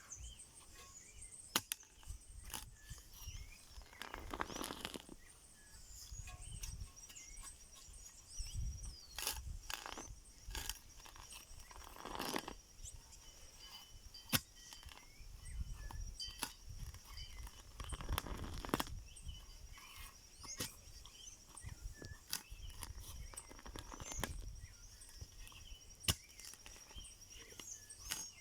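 Scattered knocks and clicks with a few longer scraping bursts, over a steady high insect trill that sets in after several seconds and a low rumble.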